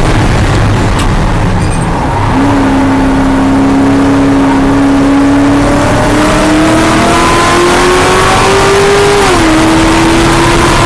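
Cadillac CTS-V race car's V8 heard from inside the car while lapping. At the start the engine note fades under braking, and it comes back on the throttle a little over two seconds in. It holds steady for a few seconds, then climbs in pitch under hard acceleration until an upshift drops it near the end.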